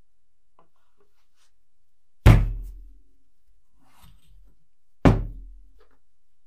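Two heavy thunks about three seconds apart, each dying away within half a second, as a perforated steel foundry flask and its round metal base are set down on a wooden workbench. Faint handling sounds lie between them.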